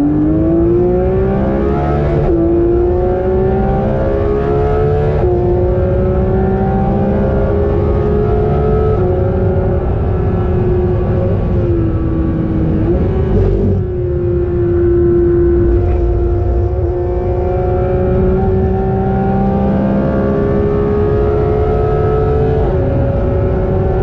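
Porsche's naturally aspirated 4.0-litre flat-six heard from inside the cabin at full throttle on track, its pitch climbing through each gear and dropping at each gear change, about six times. Around the middle it briefly eases off for a corner before pulling hard again.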